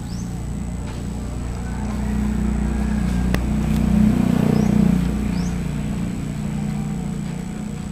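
An engine running steadily with a low hum, growing louder about four to five seconds in and then easing off. A few short, high, rising chirps sound over it.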